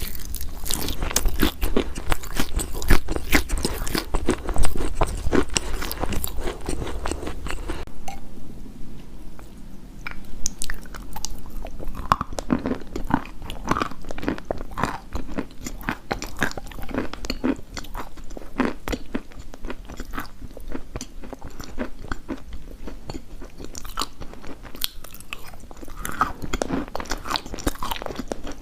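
A person biting and chewing crunchy chalk, with crisp, rapid crunches. The crunches are dense at first with a low hum underneath; about eight seconds in the hum stops and the chewing turns sparser.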